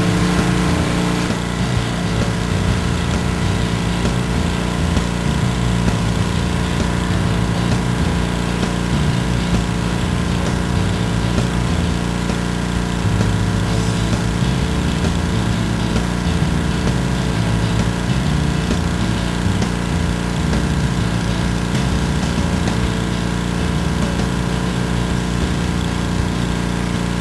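Pressure washer's small gasoline engine running steadily at a constant pitch, with the hiss of high-pressure water spraying from the wand.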